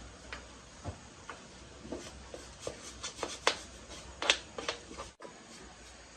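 Scattered light clicks and knocks of tools and parts being handled during repair work, irregular and of varying loudness, over a low steady background hum; the sound cuts out briefly about five seconds in.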